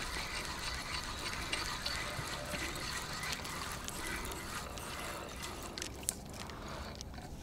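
Steady trickling of water, with a few faint clicks about six seconds in.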